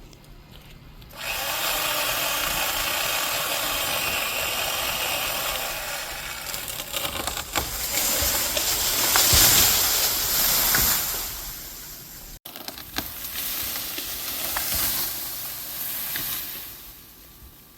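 Portland 14-inch corded electric chainsaw starting up about a second in and running while cutting through tree wood. It grows loudest as the chain bites in, stops suddenly, then runs again more quietly.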